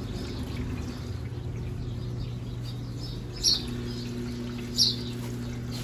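Brastemp Double Wash 15 kg washing machine in its intermediate spin with the mini basket only: the motor runs with a steady hum while water drains. A bird chirps twice, briefly, about three and a half and five seconds in.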